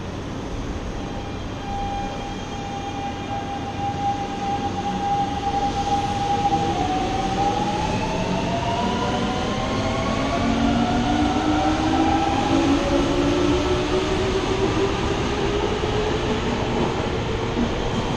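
Fukuoka City Subway electric train pulling out of the station: its traction motors hold a steady whine, then about seven seconds in several tones begin rising in pitch together as the train accelerates past, over a wheel rumble that grows louder.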